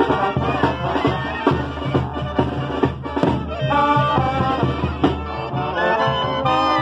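Sinaloan-style banda brass band playing a pasodoble, with trumpets and trombones heard close over a steady drum beat, and the brass moving into long held notes about four seconds in.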